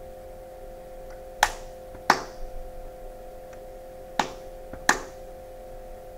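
Body percussion for a drum part: sharp hand strikes in pairs about two-thirds of a second apart, the pattern repeating about every three seconds, with a few faint taps between.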